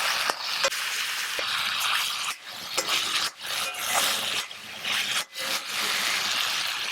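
Carrots and peas frying on a high flame, sizzling while a spatula stirs them and scrapes the pan, with a few brief breaks.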